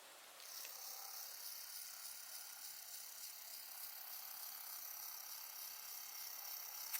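Wind blowing as a steady, faint high-pitched rush. It starts about half a second in and cuts off suddenly near the end with a click.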